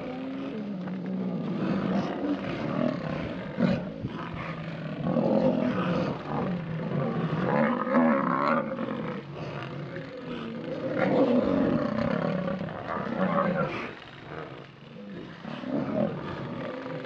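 Lions growling and snarling in repeated drawn-out bouts. This is aggressive growling in a standoff with African buffalo.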